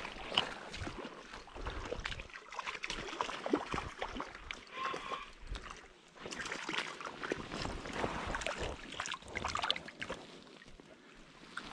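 Shallow seawater lapping and splashing lightly at the shore's edge, with scattered clicks and rustles from handling a spinning rod and reel, and uneven rumbles of wind on the microphone.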